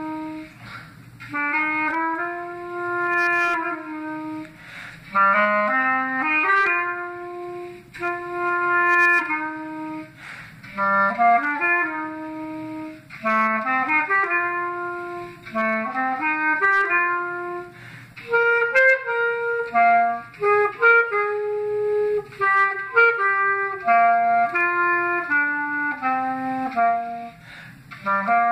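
Solo clarinet playing a melody, the notes moving up and down in short phrases with brief pauses between them.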